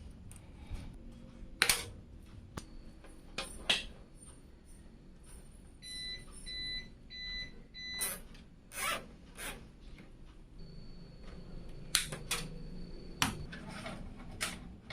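Scattered sharp clicks and knocks of computer parts being handled and fitted together. About six seconds in there are four short, high beeps, and later a thin high tone holds for a few seconds.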